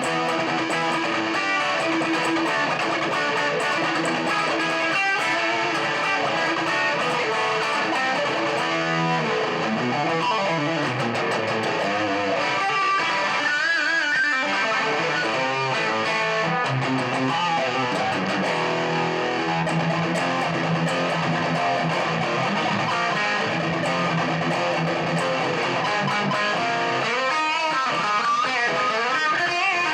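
Career Les Paul-style electric guitar played through distortion: a continuous run of sustained notes and chords, with some held notes wavering in pitch about halfway through and again near the end.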